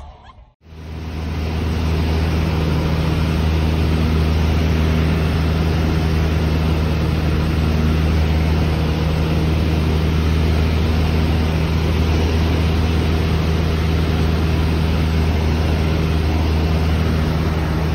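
Small propeller plane's engine and propeller running steadily, heard from inside the cabin with a constant rush of air. It comes in abruptly about half a second in.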